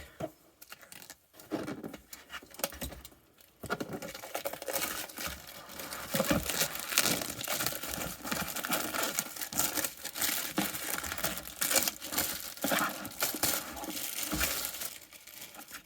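Cardboard box being opened and its packaging handled: rustling and crinkling, in short bursts at first, then near-continuous from about four seconds in.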